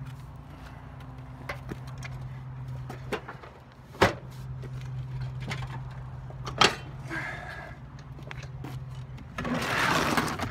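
Riding lawn mower being pulled down off a wooden block: two sharp thumps about four seconds in and again about two and a half seconds later, then about a second of loud rushing noise near the end, over a steady low hum.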